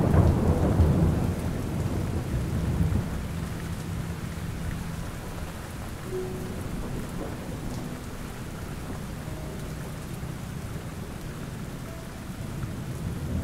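Steady rain with a low rumble of thunder in the first few seconds that rolls off and fades, leaving the even hiss of the rain.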